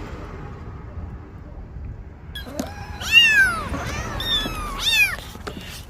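A cat meowing: a run of short, arching calls that start a little over two seconds in, over a low rumbling noise.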